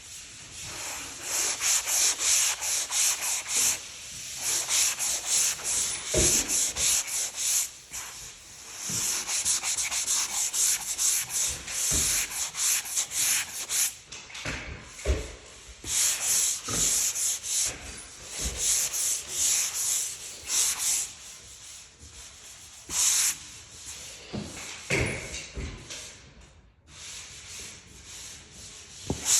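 Hand sanding of dried joint compound on a skim-coated drywall wall: quick back-and-forth rasping strokes in runs, with short pauses between them.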